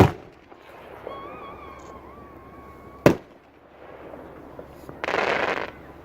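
Fireworks going off: a sharp bang at the start and another about three seconds in, with a wavering whistle between them, then a loud hissing burst lasting about half a second near the end.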